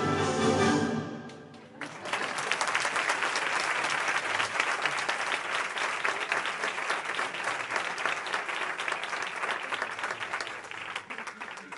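Music fades out within the first two seconds, then an audience applauds with many quick, sharp claps until near the end.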